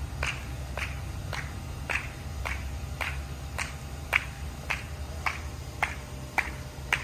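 Finger snapping: a steady run of sharp snaps about two a second, a dozen or so in all.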